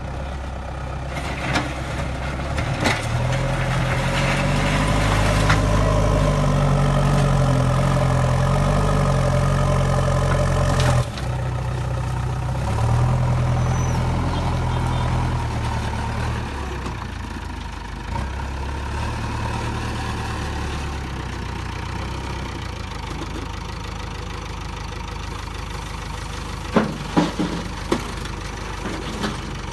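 Diesel engine of a JCB 3DX backhoe loader working, revving up twice under load and dropping back, then settling to a steadier run. A few sharp metallic knocks come near the end.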